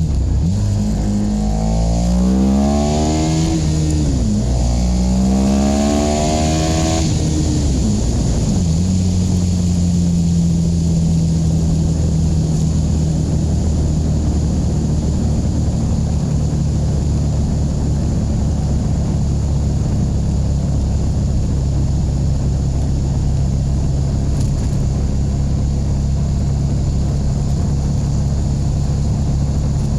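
KTM 1290 Super Duke R's V-twin engine accelerating hard through two gears in the first several seconds, the revs climbing and dropping at each upshift, then running steadily at an even cruising speed. Steady wind noise lies over the engine throughout.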